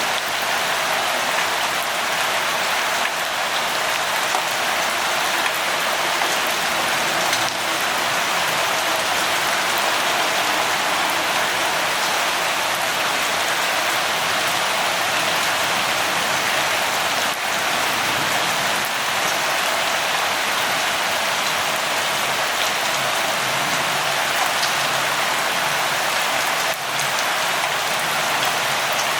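Steady rain falling, a dense even patter of drops on a surface.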